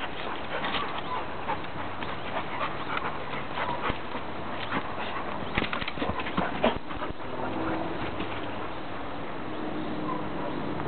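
Two yellow Labrador retrievers play-wrestling: dog noises and scuffling in leaf litter, with many short sharp clicks and knocks, densest about five to seven seconds in, then settling into a steadier, quieter rustle.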